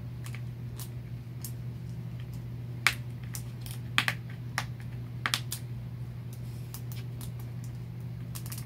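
Scattered sharp clicks and taps of small plastic toy pieces and a plastic capsule ball being handled, the loudest a few seconds in, over a steady low hum.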